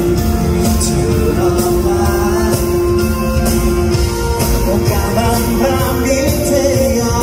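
Live rock band playing, with electric guitar, drums and cymbals under a man's lead vocal sung into a handheld microphone. The sound is loud and steady throughout.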